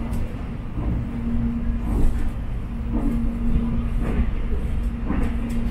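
Electric airport train running, heard inside the passenger car: a steady low rumble with a hum that fades in and out several times.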